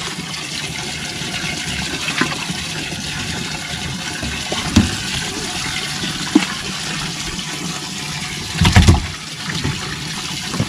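Steady rush and slosh of water in a bass boat's livewell as bass are grabbed out of it and tossed overboard, with a few short knocks and a cluster of low thumps and splashes, the loudest sound, about nine seconds in.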